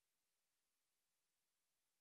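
Near silence: only a faint, even hiss with no events.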